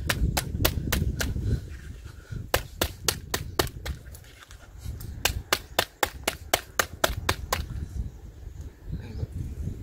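Kitchen knife cutting into a whole fish on a plastic cutting board: a quick, even run of sharp clicks, about four a second, that stops about seven and a half seconds in.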